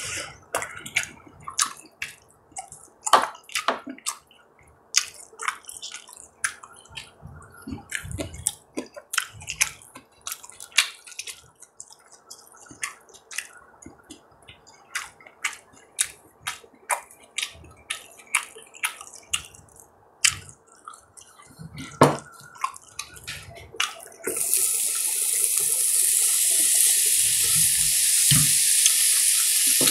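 Close-up eating sounds, with irregular sharp clicks and soft smacks of chewing. About 24 seconds in, beef on a hot iron griddle starts to sizzle suddenly with a loud, steady hiss that keeps going.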